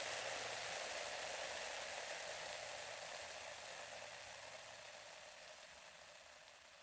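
Carbonated drink fizzing, a steady hiss of bursting bubbles that slowly dies away as the drink settles.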